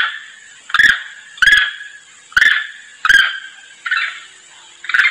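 Long-tailed macaque calls: a short, harsh call repeated seven times, about one every three-quarters of a second, each starting sharply and fading fast. It is the call of a macaque summoning its troop mates.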